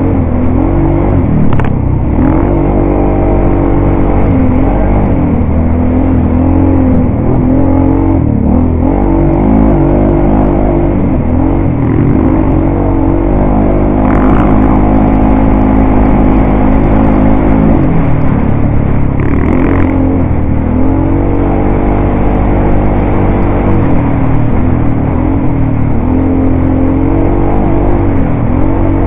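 ATV engine running loud under load, its pitch repeatedly dipping and climbing as the throttle is eased off and opened again. There are two short bursts of hiss about halfway through.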